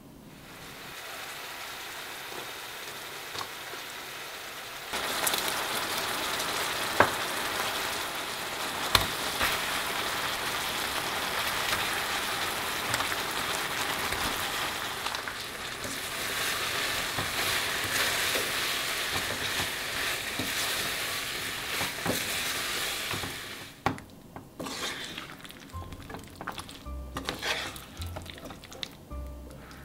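Sweet-spicy chili sauce with sliced green chilies sizzling and bubbling in a frying pan as a wooden spatula stirs it, with a few sharp knocks of the spatula on the pan. The sizzling swells about five seconds in and falls away about three quarters of the way through, leaving softer scattered stirring sounds.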